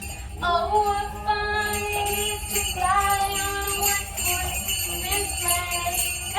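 A Christmas song playing, with jingling sleigh bells over a held, sliding melody line.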